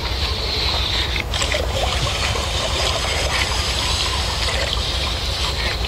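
Water splashing and trickling along the hull of a moving boat, over a steady low rumble.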